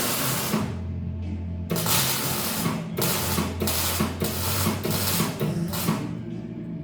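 MIG welding arc crackling in short runs of about a second each, stopping and starting several times, over background music with a steady beat.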